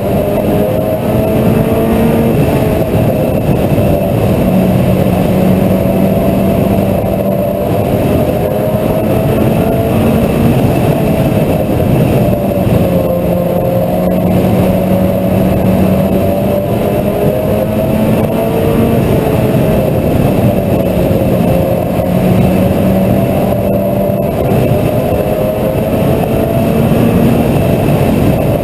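Mini stock race car engine running hard at race speed, its pitch sagging and climbing again every few seconds with the throttle, over a steady rush of noise.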